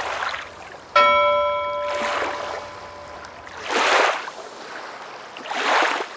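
A bell struck once about a second in, its ringing tone fading within a second, over rushing swells of surf-like wave noise that rise and fall every couple of seconds.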